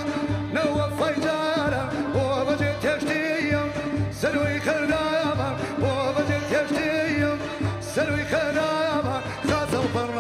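A male singer sings a Kurdish folk song live, with wavering, ornamented lines. A folk ensemble backs him, with frame drums and large bass drums keeping a steady beat.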